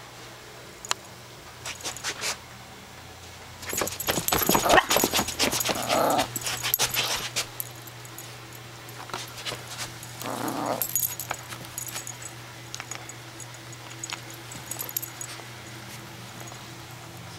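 Long-haired Chihuahua puppy playing with a plush toy: scuffling and rustling with small metallic jingles of its collar tag, busiest a few seconds in. Twice the puppy makes a short growling whine, once about six seconds in and again about ten seconds in.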